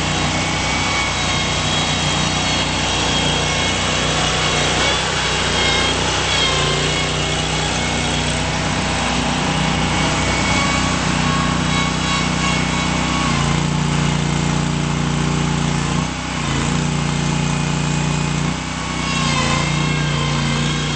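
Engine of a 2011 Terramite T5C compact backhoe loader running steadily, its note stepping up and down several times in the second half as the machine is worked.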